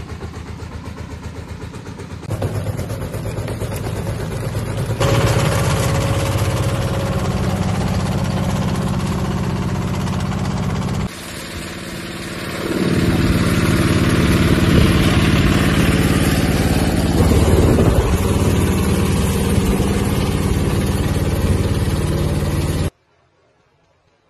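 A motor vehicle's engine running, getting louder in steps, dropping briefly about eleven seconds in and then picking up again, and cutting off suddenly near the end.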